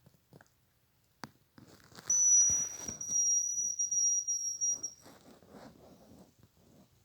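A long, thin, very high whistle in the manner of a hazel grouse call, falling slightly in pitch and briefly broken partway through, over faint rustling. A sharp click comes about a second in, just before the whistle.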